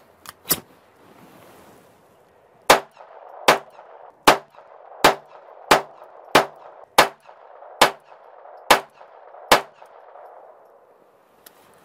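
Ruger SR22 .22 LR pistol firing ten shots of standard-velocity ammunition at a steady pace, about one every three-quarters of a second, emptying the magazine. A couple of light clicks of handling come just before the shooting starts.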